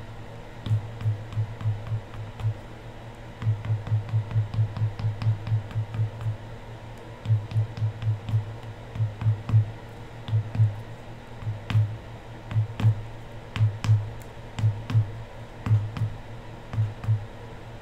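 Typing on a computer keyboard in irregular runs of keystrokes with short pauses between them, each key a dull low thud with a light click.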